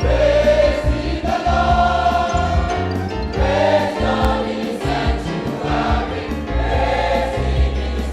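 Choir singing a gospel praise song with live band accompaniment, with full voices held on sustained notes over a strong bass line.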